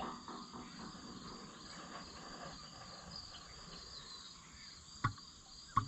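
Engine oil pouring from a 2.5-gallon jug into a tractor's oil filler, with the jug burping twice near the end: two short glugs less than a second apart.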